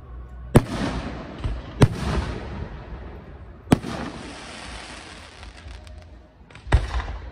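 Aerial firework shells bursting: a sharp boom about half a second in, another near two seconds, a third near four seconds and two in quick succession near the end, each trailing off in a fading rumble.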